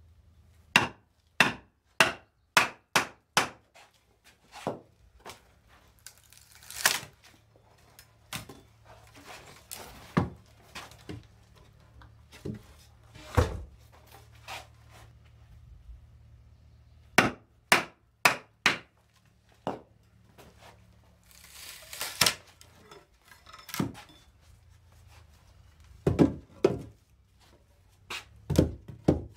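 Wooden mallet knocking on the back of a froe, driving it down into a wooden block to rive thin roof shingles. The sharp wooden knocks come in quick runs of about two a second, with scattered single knocks and two longer rasping sounds between.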